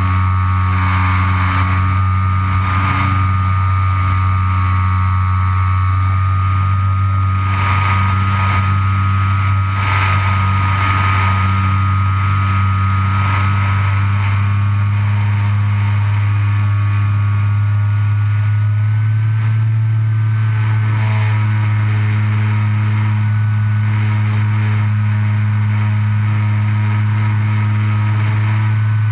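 Electric motor and propeller of a Parkzone BF109 RC model plane in flight, heard from a camera mounted under it: a loud steady drone with a higher whine, the pitch shifting up a little about two-thirds of the way in. Surges of wind noise in the first half.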